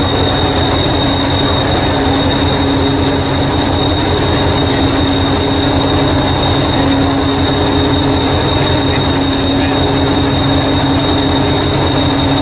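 Diesel-electric multiple unit, Hastings DEMU 1001, standing and idling: a steady, even engine throb with a constant high whine over it.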